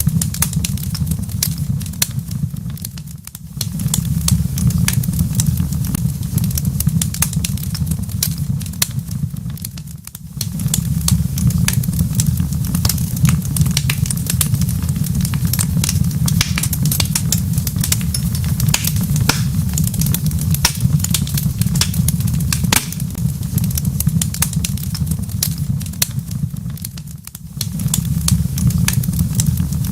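Crackling wood fire in a fireplace: a dense stream of sharp pops and snaps over a deep, steady rumble, which drops away briefly three times.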